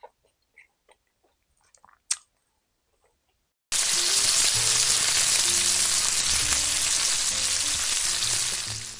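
A few faint clicks over near silence, then about four seconds in a loud sizzling hiss like meat frying starts suddenly over low music notes, fading near the end.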